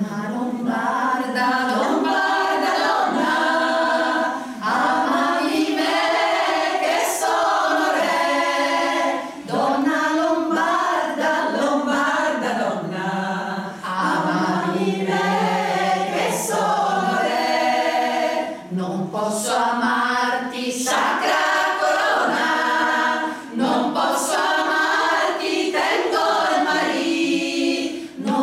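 Women's choir singing a cappella in several voice parts, in phrases of about four to five seconds, each ending in a brief break for breath.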